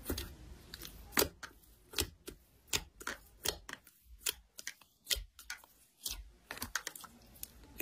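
Thick white slime being squeezed and poked by fingers, giving a series of sharp clicks and pops from trapped air, about one or two a second.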